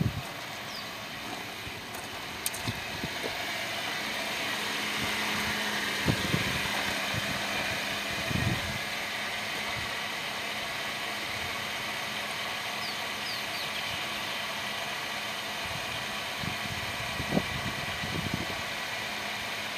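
Car engine idling steadily, with a few short knocks.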